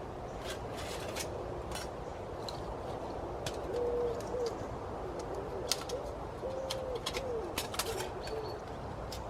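A pigeon cooing a phrase of low, slightly bending notes, starting about three and a half seconds in, over a steady background hiss. Scattered sharp clicks and taps sound throughout.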